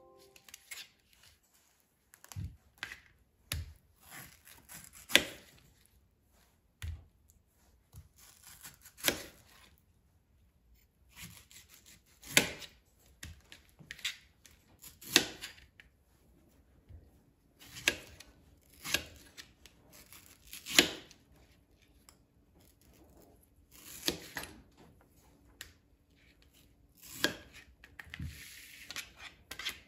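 Kitchen knife slicing a peeled mango and tapping down on a thin plastic cutting board: irregular sharp taps about every one to two seconds, some with a short slicing scrape.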